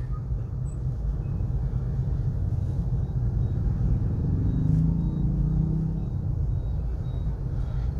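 Steady low rumble, with a low drone that swells and fades away about four to six seconds in.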